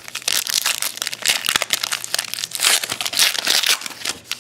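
A trading-card pack's foil wrapper crinkling and crackling in close handling, a dense run of quick crackles throughout.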